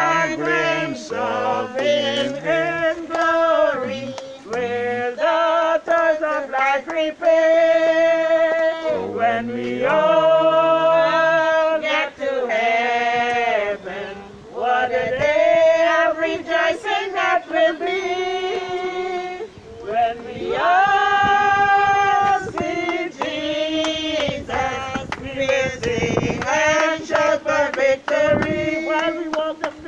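A group of men and women singing a hymn together in several voice parts, with long held notes.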